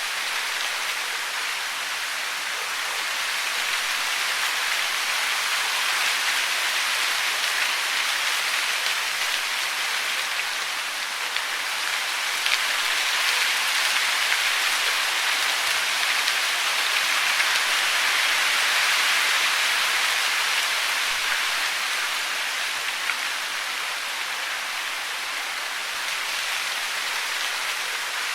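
Steady hiss of falling water, swelling gently and easing again near the end, with a few faint ticks.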